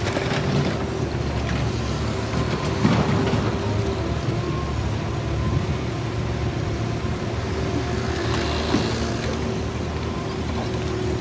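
Heavy construction machinery engine running steadily, with a few short knocks and clanks over it.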